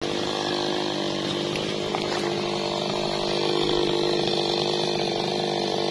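Maestro MT 6500 two-stroke chainsaw engine running at a steady speed, not revving or cutting.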